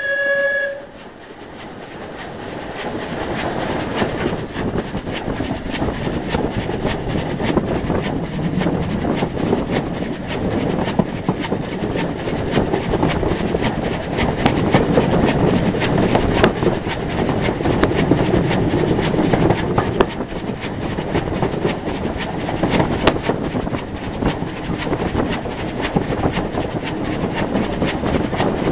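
Steam locomotive whistle cutting off under a second in, then the running noise of rebuilt Battle of Britain class steam locomotive 34059 heard from on board. The running noise is a continuous rush scattered with sharp clicks of wheels over the rail joints.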